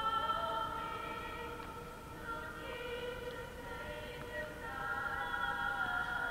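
A small choir of young female voices singing unaccompanied, holding slow sustained chords that shift every second or two, echoing in a large chapel.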